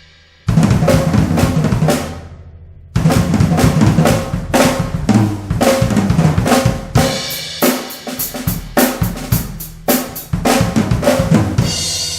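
A 1970s Pearl fiberglass drum kit being played. A short burst of drum and cymbal hits comes about half a second in, then a brief pause. From about three seconds in there is a steady run of drum strokes, and near the end a cymbal is left ringing.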